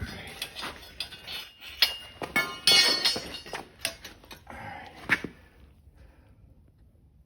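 Clinking and knocking of metal casting gear (crucible, tongs and mould) while a copper pour is handled, with a dense rattling burst about halfway through. It falls quiet after about five and a half seconds.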